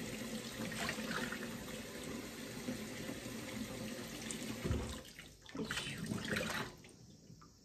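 Kitchen tap running into a sink while tomatoes are rinsed under it. The flow breaks briefly about five seconds in, picks up again, and stops near the end.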